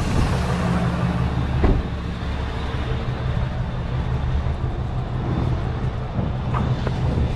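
Rollback tow truck's engine idling with a steady low rumble, heard from just outside the truck, with one short clunk about a second and a half in.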